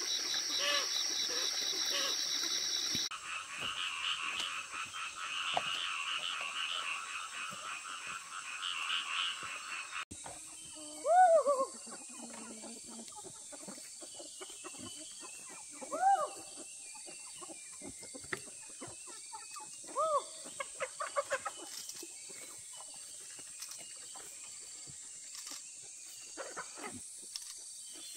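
Outdoor animal calls. A continuous buzzing, pulsing chorus fills the first ten seconds, then cuts off abruptly. After that, a short call with a rising-then-falling pitch repeats about every four to five seconds over a steady hiss.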